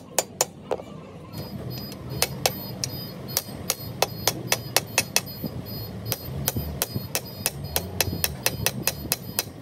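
Hammer striking metal again and again, irregular blows about two to three a second with a short pause about a second in, over a low steady hum.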